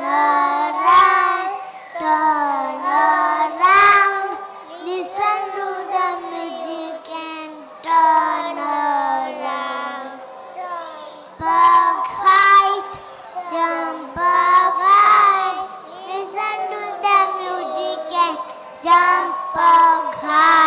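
Young children singing a nursery rhyme in short phrases.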